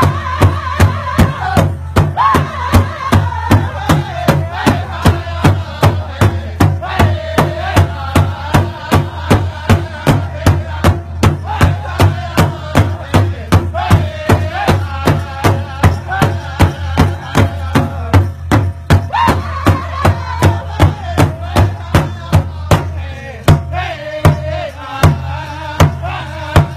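A steady drumbeat of about two and a half strokes a second, with a group of voices singing long melodic lines over it. The low background hum drops away near the end while the beat goes on.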